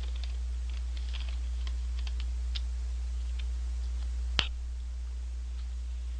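Eating french fries from a paper carton close to the microphone: small scattered crackles and clicks for the first few seconds, then one sharp click about four seconds in, over a steady low hum.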